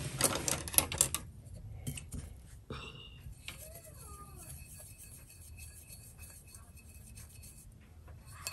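Paintbrush working colour in a ceramic palette dish: a quick run of taps and scrapes in the first second, then faint rubbing and small clicks.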